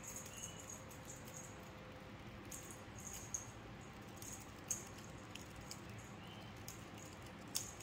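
Faint scattered light clicks and ticks, a few of them sharper, as cats play with a wand toy on a tile floor.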